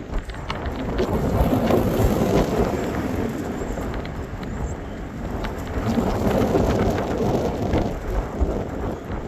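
Strong gusting wind buffeting the microphone, a rumbling rush that swells twice, about a second in and again past the middle.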